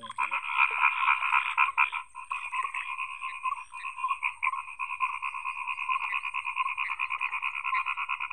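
A dense chorus of many frogs croaking together: a fast, continuous pulsing din, loudest in the first two seconds.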